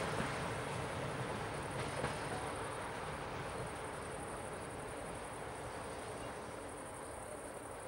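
Passenger train rolling along the rails, its steady rumble slowly fading as the last coaches pass and move away.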